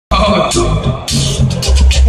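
Amplified looped street-busker music through a speaker: a rhythm of sharp high hits over a deep repeating bass line, built up on a loop pedal.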